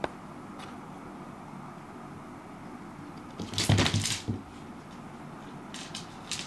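Cat batting a dried persimmon seed across a wooden floor: a quick cluster of clicks and light thumps from the seed and paws about three and a half seconds in, with a few lighter taps near the end.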